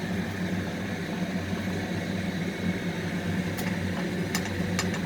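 Kitchen exhaust fan running with a steady low hum, with a few light sharp ticks near the end as bread fries in butter in the pan.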